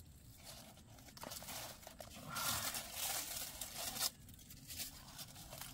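Aluminium foil crinkling and tearing as it is peeled off a grilled fish, loudest from about two to four seconds in, then stopping abruptly.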